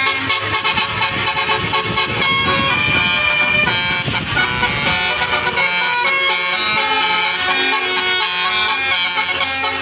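Bus 'telolet basuri' musical air horns playing a tune: held horn notes that step from pitch to pitch, several sounding together.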